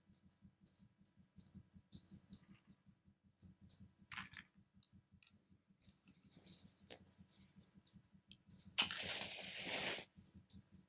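Film soundtrack of a rapid, even low pulsing, about four beats a second, under scattered high tinkling, chime-like pings, with a hiss lasting about a second near the end.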